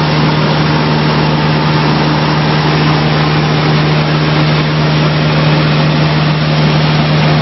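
Light high-wing airplane's engine and propeller heard from inside the cabin in flight: a steady, loud, low drone with an even rush of air over it.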